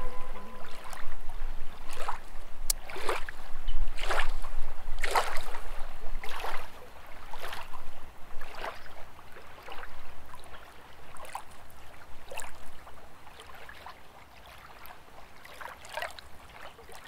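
Rhythmic water swishes, roughly one a second, fading to fainter, more widely spaced swishes after about seven seconds.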